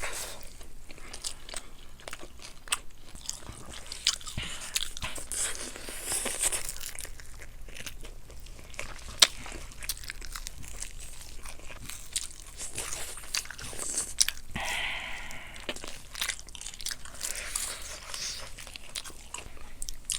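Close-up mouth sounds of people eating glazed Korean fried chicken: irregular crunching bites and chewing, with one sharp crack about nine seconds in.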